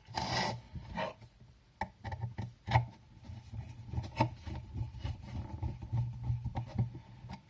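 Small bolts being turned in by hand with a screwdriver on an electric fan's motor housing: scattered clicks and light scraping of metal on metal, over a low steady hum.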